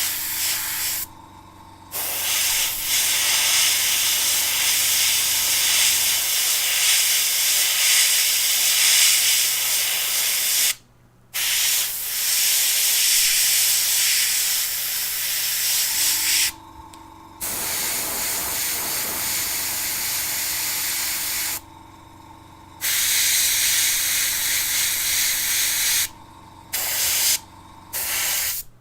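Airbrush spraying metallic paint: a steady, loud hiss of air and paint that breaks off briefly about six times, with a low steady hum underneath that drops away for a stretch in the middle.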